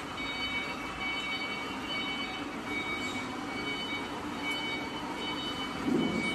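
Wood pellet production line machinery running: a steady mechanical rumble with a low hum and several thin, high whining tones that cut in and out. A brief louder thud comes near the end.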